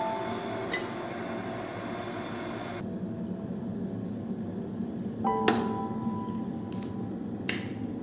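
Electric kettle heating water with a steady low rumble, a metal spoon clinking into a glass mug about a second in, and further sharp clicks later on, the last near the end. Soft background music with bell-like notes comes and goes.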